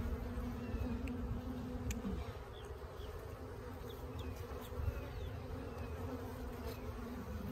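Honeybees buzzing steadily around an open hive, a continuous hum over a low rumble.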